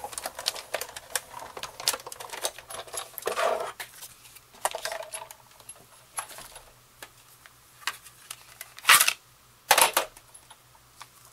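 Big Shot die-cutting and embossing machine being hand-cranked to roll a folder and plates through, a dense run of small clicks over the first few seconds. After that come sparser handling clicks and two sharp clacks about nine and ten seconds in.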